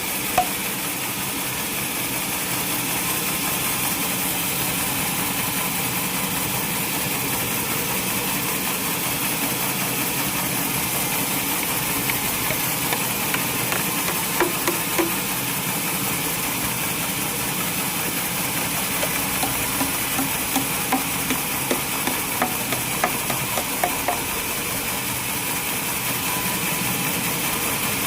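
Sawmill machinery running steadily, with a scattering of short knocks.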